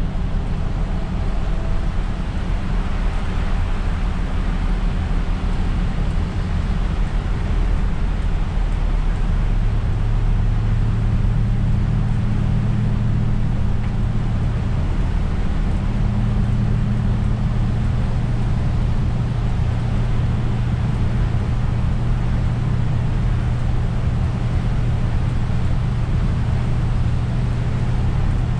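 Isuzu Erga city bus driving on a wet road, heard from inside the cab: a steady engine hum under the hiss of tyres on the wet road, with the engine tone holding steadier from about a third of the way in.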